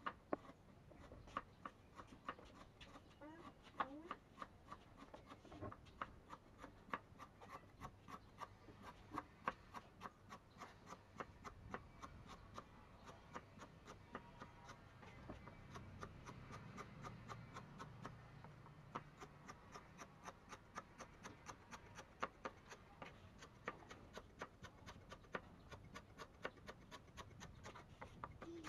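Kitchen knife chopping lemongrass on a wooden cutting board: a steady run of quiet taps, about three a second.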